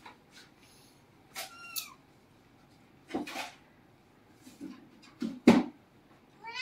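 Domestic cat meowing: a short falling mew about a second and a half in, and another meow starting near the end. Between them come two short, sharp noisy bursts, the louder one shortly before the end meow.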